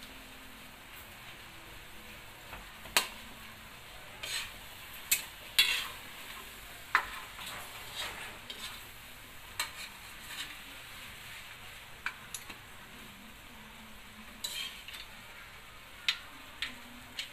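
Marinated pork chops sizzling as they fry in a metal wok, with metal spatula tongs scraping and clinking against the pan at irregular moments as the pieces are turned.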